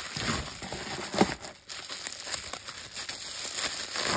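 Bubble wrap crinkling and rustling as it is unwrapped by hand from a camera lens, with one sharper, louder crackle about a second in.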